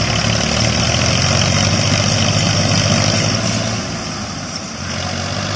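Massey Ferguson 240 tractors' three-cylinder diesel engines running, a loud steady low drone that drops a little about four seconds in.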